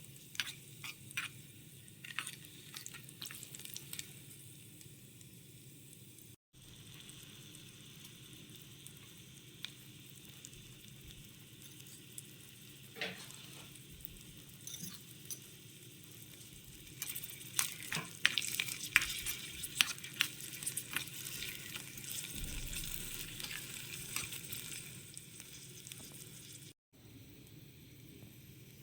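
Food frying in oil in a miniature pan: a steady sizzle with the clicks and scrapes of a small utensil stirring, busiest about two-thirds of the way in. The sound cuts out for a moment twice.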